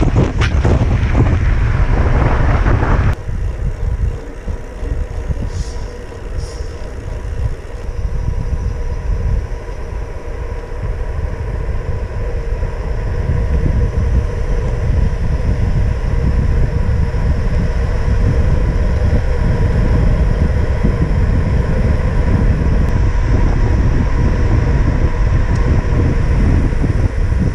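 Wind rush and buffeting on a camera microphone while a bicycle rides fast on smooth asphalt, a steady heavy low rumble. About three seconds in it changes abruptly to a somewhat quieter, steady rush with a faint constant tone.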